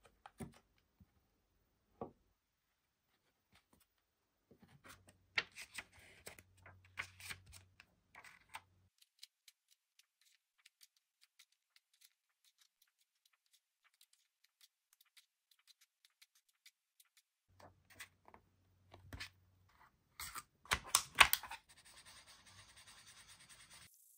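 Handling noise of a paper activity book and its packaging: scattered taps and crinkles, with a louder flurry about 21 seconds in. Near the end a faint steady scratching of an Imagine Ink felt-tip marker rubbing on paper begins.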